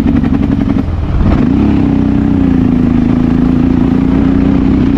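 Honda XR650L's single-cylinder four-stroke engine running under way. The engine eases off about a second in, then picks back up to a steady drone, with wind noise on the microphone.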